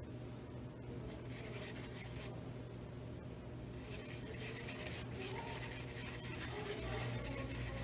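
Paintbrush bristles scrubbing and stirring washable paint in a foam tray, mixing red and white into pink: a faint, soft scratchy rubbing that gets busier about four seconds in.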